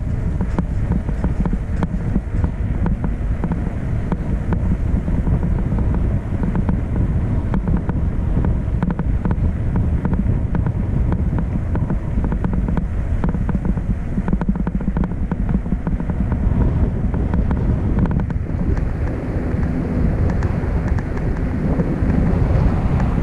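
A vehicle on the move: a steady low rumble of engine and road noise, with wind buffeting the microphone throughout.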